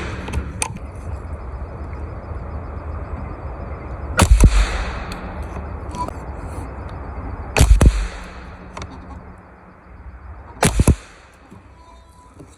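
A Savage Arms 64 semi-automatic .22 LR rifle fired three times, each a short sharp report, about three and a half seconds and then three seconds apart.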